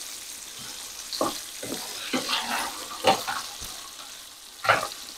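Salmon fillets sizzling steadily in a hot frying pan, with about five sharp clacks of tongs against the pan and fish as they are turned.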